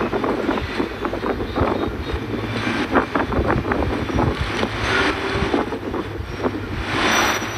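Gusty wind buffeting the microphone, with irregular rumbling thumps over a steady low hum, swelling briefly near the end.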